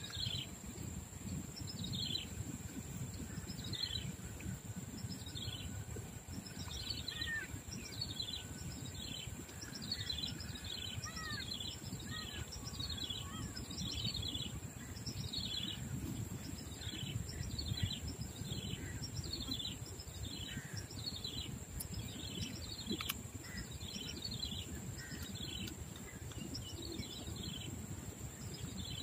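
A bird calling over and over in short falling chirps, about three every two seconds, over a steady low outdoor rumble and a thin high steady whine.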